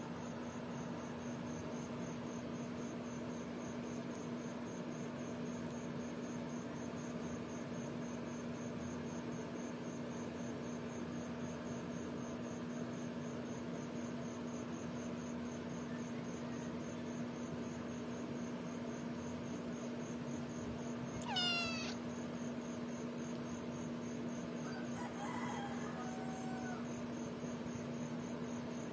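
A tabby kitten waking up gives one short, quickly falling mew about two-thirds of the way in, followed a few seconds later by a fainter mew-like sound, over a steady background hiss and hum.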